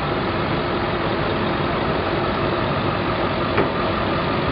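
Lifted Ford truck's engine running steadily as the truck passes slowly, an even hum with no change in pace.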